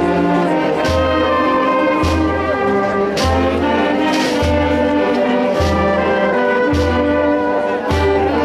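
Wind band of clarinets, saxophones, trumpets and trombones playing a slow processional march, with a heavy drum-and-cymbal beat falling about once a second under the held brass and reed chords.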